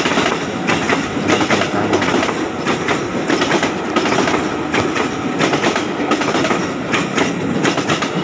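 Electric commuter train passing close by, its wheels clattering in loud, irregular knocks over the rail joints and the switch blades of the turnout.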